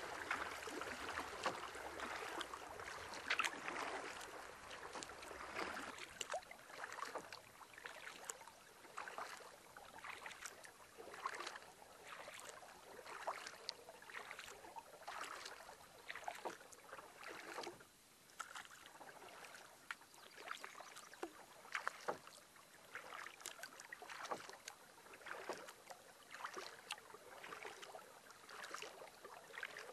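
A canoe being paddled: soft splashes of the paddle blade entering the water, roughly once a second, louder in the first few seconds.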